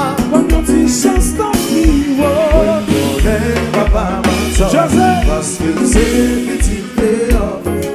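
Live Haitian konpa band playing: a drum kit with cymbals, a pulsing bass line and a singing voice over the top.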